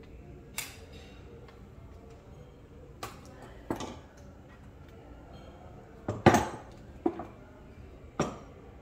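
Metal parts and tools of a PCP air rifle being disassembled, clinking and knocking against a wooden tabletop: a handful of separate sharp clinks, the loudest about six seconds in.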